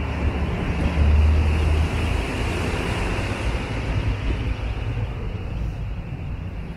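Outdoor street noise: a steady low rumble, loudest about a second in and easing off toward the end.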